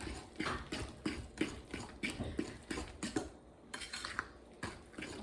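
Fork beating thick cake batter in a mixing bowl, the tines scraping and clicking against the bowl in an irregular run of strokes, about two or three a second, with a short pause a little past the middle.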